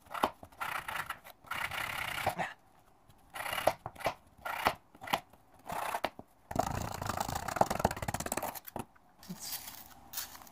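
A knife blade scraping and chipping at a hard mineral dig block to free the stone inside, in short bursts of gritty scratching with brief pauses and a few sharp clicks, and a longer stretch of scraping past the middle.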